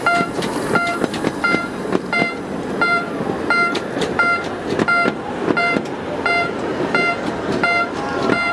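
Level-crossing warning bell ringing in a steady repeated ding, about one and a half strikes a second, as the carriages of a miniature steam train roll past with a rumble and rattle of wheels.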